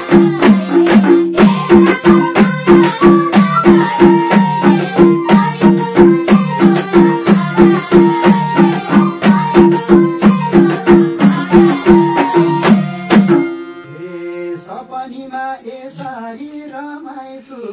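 Live Nepali lok dohori folk music: a hand drum keeps a steady beat of about three strokes a second under a droning accompaniment while women sing. The music cuts off suddenly about 13 seconds in, and a man's voice follows at the microphone.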